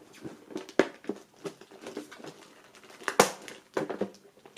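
Handling noises of a black metal box being worked open by hand: scattered small clicks and scrapes, with two sharper knocks, one about a second in and a louder one near three seconds in.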